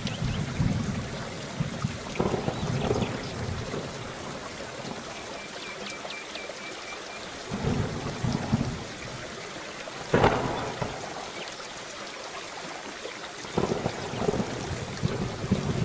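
Steady rain with several rolls of low thunder. A sharper thunderclap about ten seconds in is the loudest moment.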